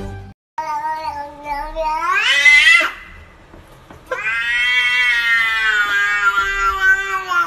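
Domestic cat giving two long, drawn-out meows. The first lasts about two seconds and rises sharply in pitch at its end; the second lasts about three seconds and is held fairly level.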